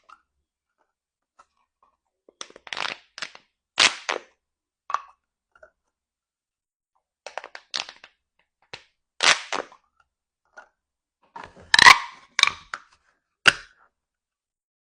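Mini pop tubes, corrugated plastic toy tubes, being stretched and compressed. They give bursts of sharp crackling pops and clicks, with short silences between the bursts and the loudest burst near the end.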